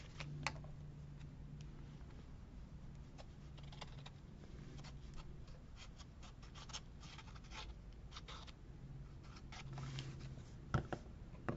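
Paper and craft materials being handled on a tabletop: faint scratching, rustling and small ticks, with two sharper clicks near the end. A low steady hum sits underneath.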